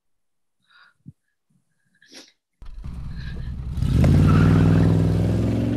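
Van engine sound effect: it starts abruptly about two and a half seconds in, revs up with a rising pitch a second later, then settles into a steady drone as the vehicle drives off.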